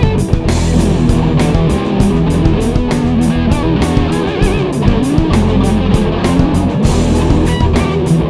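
Band music: guitars strummed and picked over a steady drum beat.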